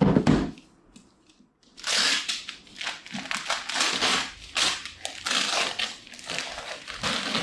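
Cardboard box and packaging being torn open by hand: a thump, a short pause, then a run of irregular crinkling, scraping and tearing noises.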